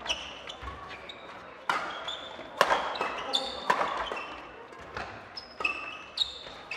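Badminton doubles rally: sharp smacks of rackets striking the shuttlecock about once a second, with short high squeaks of shoes on the court floor in between, echoing in a large hall.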